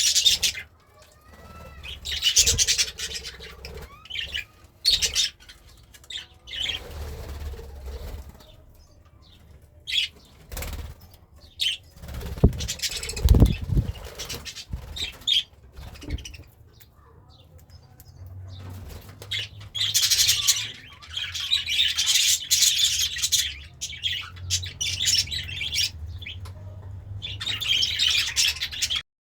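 Pet budgerigar moving about: fluttering wings and rustling in irregular short bursts, with a few brief chirps. The sounds thicken into a dense run of rustling and chirping in the last third.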